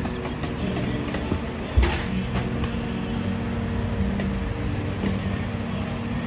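Rear-loader garbage truck's diesel engine running steadily at idle with a low hum, and a sharp knock about two seconds in.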